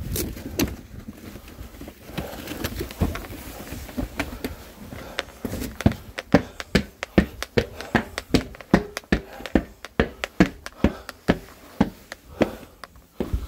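Footsteps in shoes on concrete stairs: after about five seconds a steady tread of sharp steps, about two a second, continuing almost to the end. Before that, shuffling steps with carried bags rustling against the legs.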